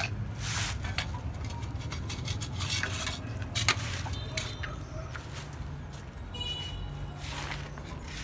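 Labrador puppy nosing around a bowl and other objects on a tiled floor: scattered light knocks, clinks and scrapes, with brief rustles, over a steady low background hum.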